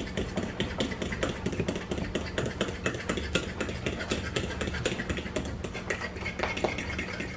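A metal fork beating waffle batter in a glass bowl: a quick, steady run of clicks and scrapes as the fork strikes the glass, several a second, over a steady low hum.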